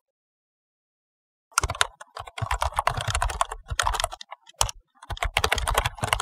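Typing sound effect: rapid keystroke clicks in quick runs, starting about a second and a half in, with a short pause partway through.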